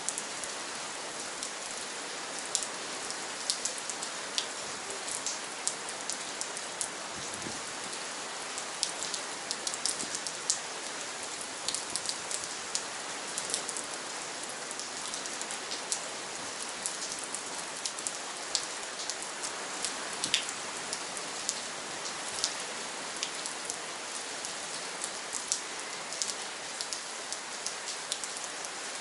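Steady rain falling: an even hiss, with frequent sharp ticks of single drops striking at irregular moments.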